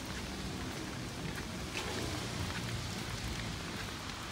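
Light rain falling on wet ground and roofs: an even hiss with scattered drop ticks over a low rumble.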